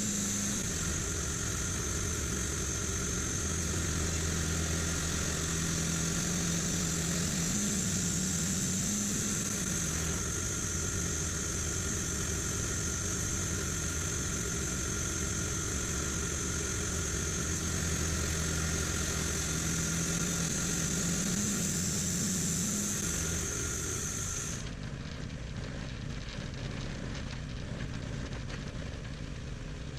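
Band sawmill running: a steady engine drone with a high, even hiss on top, which cuts off suddenly near the end, leaving a quieter rumble.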